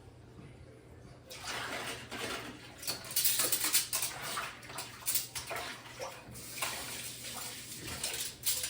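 Water running from a tap onto dishes, starting about a second in, with light knocks of dishes against each other.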